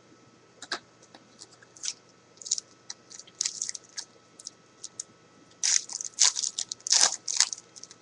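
Football trading cards being handled and flipped through by hand: a scattered series of short, crisp crackles and scrapes, thickest and loudest near the end.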